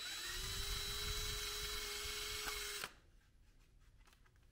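Cordless drill with a 1/16-inch bit running for about three seconds. It spins up at the start, holds a steady whine and cuts off suddenly. It is clearing out a pin hole in a 3D-printed PETG holster part.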